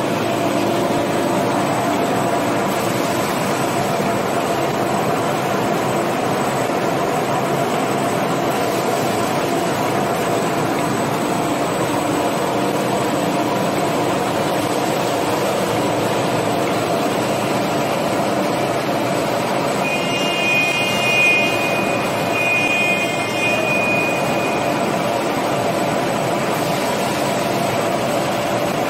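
Toilet-roll rewinder production line running: a steady, continuous machine noise with a few steady tones in it. A high tone sounds twice, about two-thirds of the way through.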